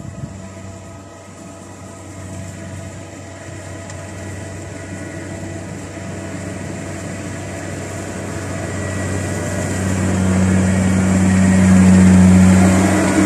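Kubota DC-70 combine harvester's diesel engine running, growing steadily louder and peaking near the end.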